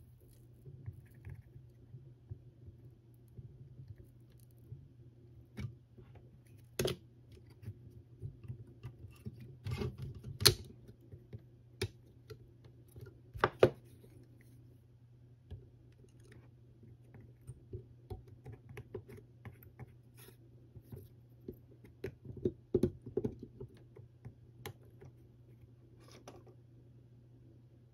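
Scattered light clicks, taps and scratches of hand-soldering work on an 18650 lithium cell pack, two sharper taps around the middle, over a steady low hum.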